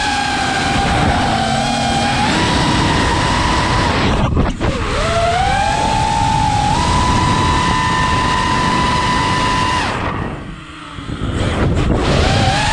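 FPV quadcopter's brushless motors whining under wind rush, the pitch rising and falling with the throttle. The whine drops away briefly about four seconds in and again for about a second near the end, as the throttle is chopped, then climbs back.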